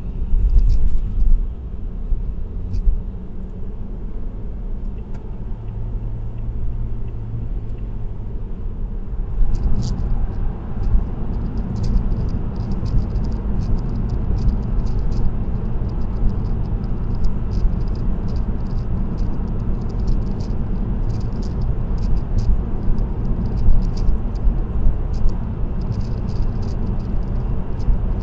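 Car cruising on an expressway: a steady low rumble of road and engine noise. From about ten seconds in there is also a light, irregular high-pitched ticking rattle.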